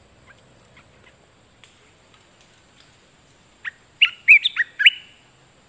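Asian red-eyed bulbul calling: faint scattered chip notes, then a loud burst of six or seven quick rising and falling notes lasting a little over a second, starting about two-thirds of the way through.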